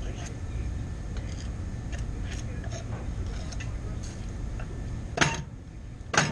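Light metallic clinks and taps as freshly cast brass pieces are handled, then two sharp metal knocks about a second apart near the end.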